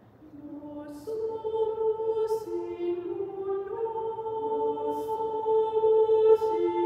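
Women's choir singing a two-part motet in treble voices to a Latin text, in long held notes that move in steps. The singing begins softly and grows fuller about a second in.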